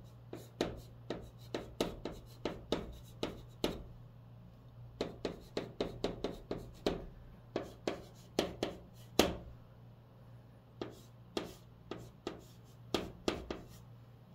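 White chalk in a holder writing on a green chalkboard: quick clusters of sharp tapping and scratching strokes as characters are written, with short pauses about four and ten seconds in. A steady low hum runs underneath.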